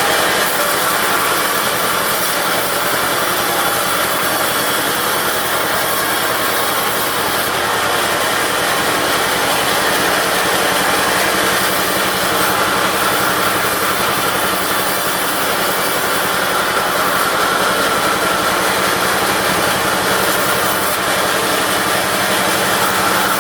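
Diesel-engine-driven push-table bandsaw sawing teak, a steady sawing noise over the engine's running.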